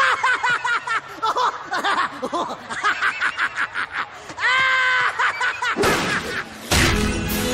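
A cartoon voice laughing in rapid snickering bursts, then a held cry about four and a half seconds in. A crash follows about six seconds in, and a louder crash near the end keeps ringing.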